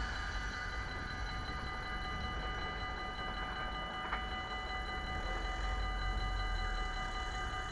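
Level-crossing warning bells ringing steadily, a constant ring of several high tones, while the barriers rise. A single short click comes about four seconds in.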